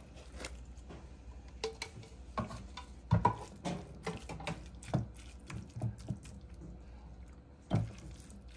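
Lump crab meat tipped from a can into a glass bowl of mayonnaise mixture and worked in with a silicone spatula: irregular wet squelches and soft knocks against the glass, the loudest a little after three seconds in.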